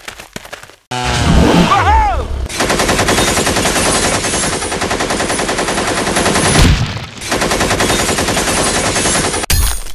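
Rapid automatic rifle fire from several guns at once, in long continuous bursts that start about a second in, with a brief break about two-thirds of the way through.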